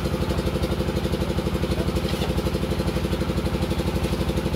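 An engine running steadily at idle, with a fast, even pulse.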